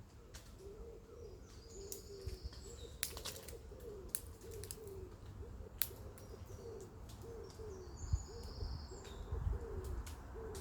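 An animal calling over and over in short, low, arched notes, about two a second, with sharp clicks and a few brief high bird chirps among them.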